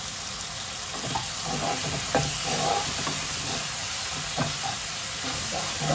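Chicken pieces sizzling in hot oil in a nonstick wok, with a steady hiss. From about a second in, a spatula scrapes and taps against the pan as the pieces are stirred and turned.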